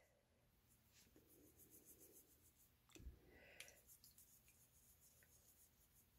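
Near silence: faint scrubbing of a small soft-bristled brush on a plastic toy figure, with two faint clicks about three seconds in.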